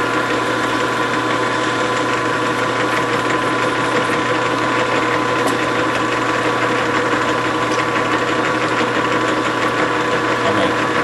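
Grizzly G4003 metal lathe running steadily under power during thread cutting: an even mechanical hum with a steady gear whine.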